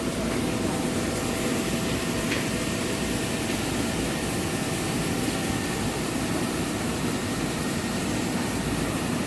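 Rice milling machinery running with a steady, even drone.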